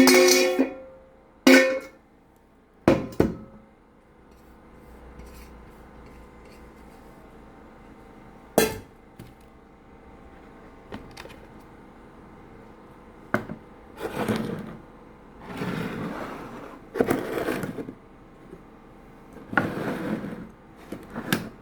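Covered cooking plates being handled, knocking together with brief ringing clinks in the first few seconds and once more near the middle, then several longer scraping sounds as the dishes are moved and covered.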